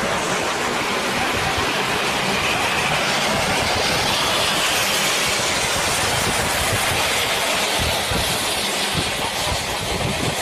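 Steady, loud rushing noise of a vehicle travelling at highway speed, wind and road roar heard from inside the moving vehicle.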